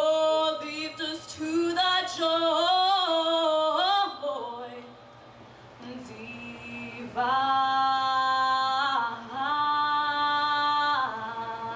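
A 13-year-old girl's solo voice singing into a handheld microphone. She bends through runs at full voice, sings softly for a couple of seconds in the middle, then holds long steady notes before easing off near the end.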